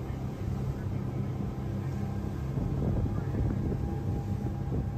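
Boat engine running with a steady low hum.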